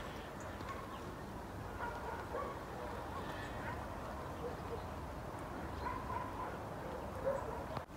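Outdoor ambience: a steady low rumble, with several faint, short animal calls in the distance.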